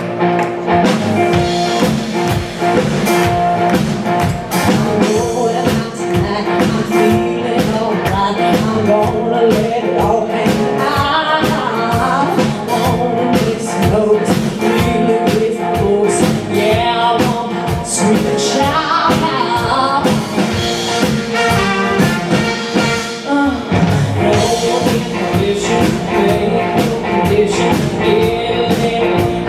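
Live band playing an upbeat song with drums, piano, guitar and horns keeping a steady beat, with a lead singer's voice over it.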